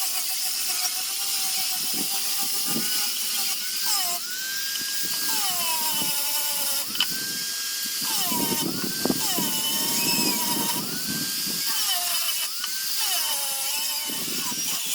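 Small high-speed rotary carving tool whining, its pitch dropping and climbing back again and again as the bit bites into the wood and frees up.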